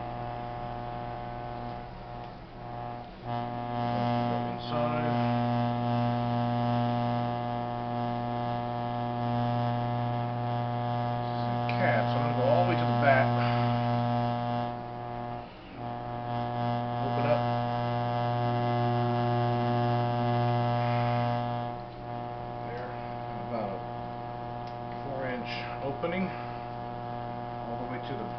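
Electric potter's wheel motor humming steadily as wet clay turns on it. The hum gets louder about four seconds in, drops out briefly around fifteen seconds, and falls back near twenty-two seconds.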